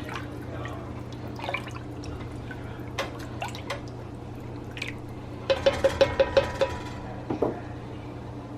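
Broth being stirred in a Dutch oven with a spoon: light splashing and drips with scattered clicks of the spoon against the pot, then a quick run of about seven ringing clinks about five and a half seconds in.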